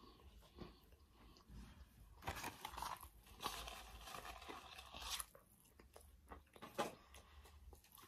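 Quiet biting and chewing of a large stacked meat sandwich, in several short spells of crunchy, wet mouth sounds.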